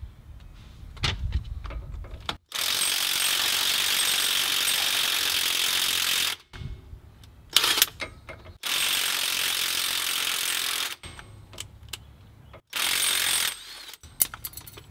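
Ryobi cordless impact wrench with a 15 mm socket running out the front differential cover bolts after they were broken loose by hand. It runs in three bursts that start and stop sharply: about four seconds, then about two seconds, then a brief one near the end, with a few metal clicks in between.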